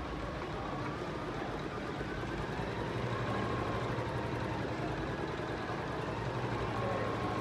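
Janome 11000 embroidery machine running steadily as it stitches out a design in the hoop.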